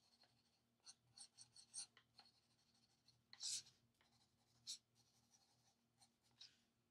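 Faint scratching of an Ohuhu alcohol marker tip on coloring-book paper: a handful of short strokes and ticks, with near silence between them.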